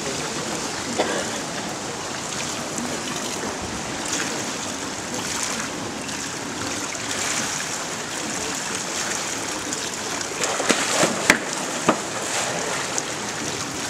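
Steady hiss of pool water and echoing swimming-hall noise, with a few sharp splashes about three-quarters of the way through as a freediver's monofin breaks the surface at the turn against the wall.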